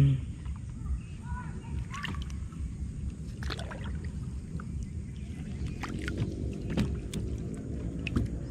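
Water sloshing and splashing around a bamboo raft being worked across deep lake water, with a few scattered knocks and a low rumble throughout.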